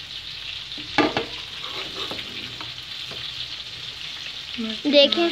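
A spoon stirring and fluffing cooked pulao rice in a metal pot, with a sharp knock of spoon on pot about a second in and lighter scrapes and taps after, over a steady hiss. A brief voice is heard near the end.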